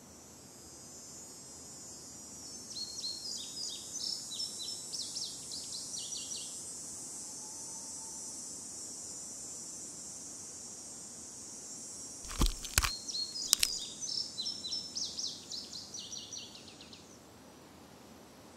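Outdoor ambience: a steady high insect hiss, with a bird chirping in quick runs of short notes twice. A few sharp clicks, the loudest sounds, come about twelve and a half seconds in.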